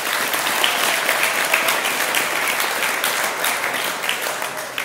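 Audience applauding: dense, many-handed clapping that holds steady and begins to thin out near the end.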